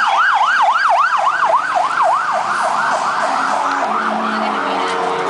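Siren sounding a fast up-and-down yelp, about three sweeps a second, fading over the second half.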